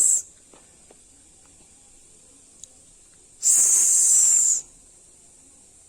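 A person's voice holding a long "sss" hiss for about a second, about three and a half seconds in: the sound of the letter S, sounded out in phonics before the word "six". A short hiss from the end of the spoken word "six" comes right at the start.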